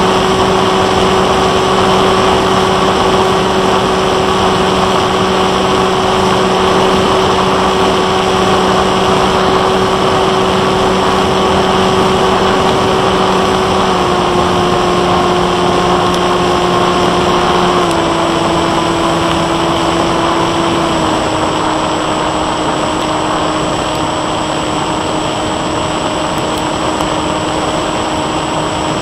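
Brushless outrunner motor and 8-inch propeller of a Bixler 1.1 foam RC plane in flight: a steady motor-and-prop drone over rushing airflow. The pitch drops in three steps about halfway through and after, as the throttle is eased back.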